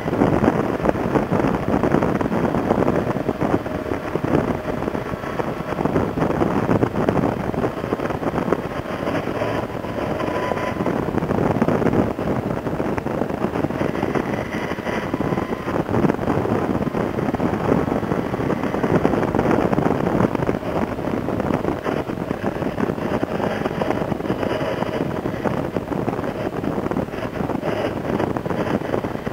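Suzuki Bandit 1250 motorcycle's inline-four engine running under way through bends, its pitch rising and falling with the throttle, heavily mixed with wind rushing over the microphone.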